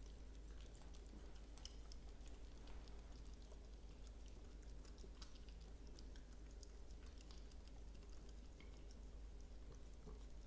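Two Bichon Frises licking and chewing peanut butter off spoons: faint, quick wet clicks and smacks over a low steady hum.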